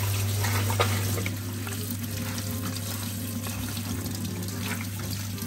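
Kitchen tap running into a stainless-steel mesh colander of green soybean pods while hands rub and stir the pods under the stream, with a few light clicks and rustles from the pods.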